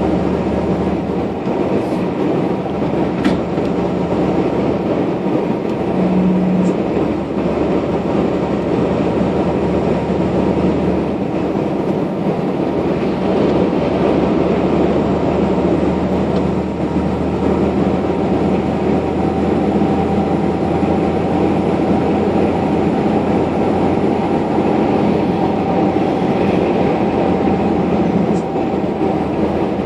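Steady engine and tyre noise heard inside the cab of a vehicle driving along, a loud, even drone and rumble with a couple of faint clicks about two and three seconds in.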